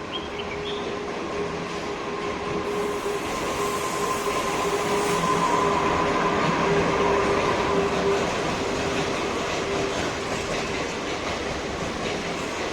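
A train passing close by, its wheels running over the rails with a steady whine held through most of the pass. The noise builds to its loudest around the middle and eases toward the end.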